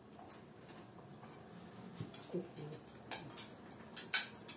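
Quiet breakfast-table sounds: a few light clinks of forks on plates and tea glasses, the sharpest about four seconds in.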